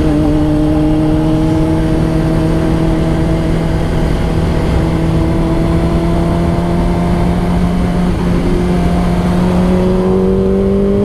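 Honda CBR600RR inline-four engine pulling steadily in gear, its pitch rising slowly as the bike accelerates, around 6,000 rpm, over wind noise.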